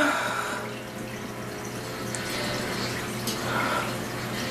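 Steady hiss of running water, as from a tap. It opens with a short, loud cough-like burst from a congested woman, and faint breaths come through partway.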